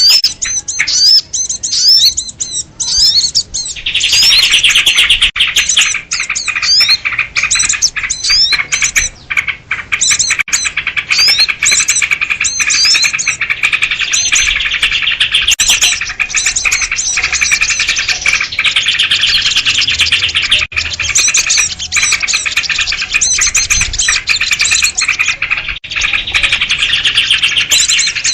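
Dense, noisy chorus of sooty-headed bulbuls (kutilang) and other small birds chirping and twittering over one another in quick, overlapping calls. It is a bird-catcher's lure recording of a bird commotion, meant to draw in small wild birds.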